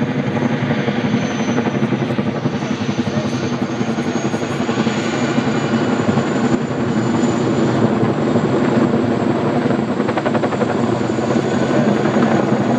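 Helicopter running steadily, its rotor beating rapidly over a thin high turbine whine that rises slightly in pitch.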